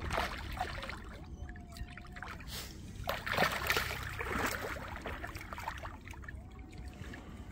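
Water splashing and trickling at the side of a boat in irregular bursts, briefly at the start and most strongly around three to four seconds in.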